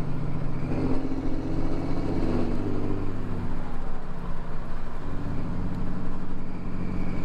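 The 2018 Ram 3500's Cummins diesel engine running while the truck drives, heard from inside the cab. Its note changes, easing off about four seconds in and pulling again about a second later.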